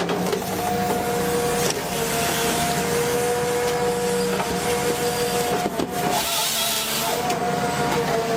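Tree-felling machine running under load, a steady mechanical whine over a hissing noise, with a few short breaks.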